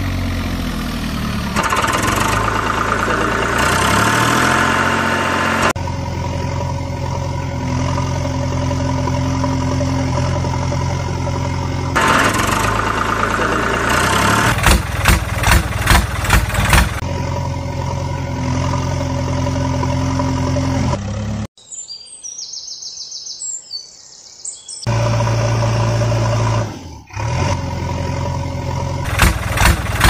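Diesel tractor engine sound idling and revving, in segments that change abruptly as if cut together. A short quieter break about two-thirds of the way through has faint high chirps.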